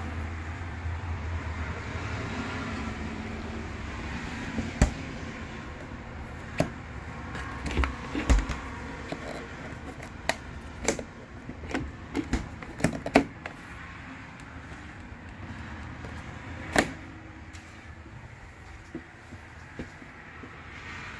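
Refrigerator doors, latch and cabinet drawers being handled: a series of sharp clicks and knocks, several in quick succession from about seven to thirteen seconds in and one more a few seconds later, over a steady low hum.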